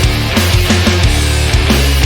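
Loud heavy rock music with distorted guitars and driving drums.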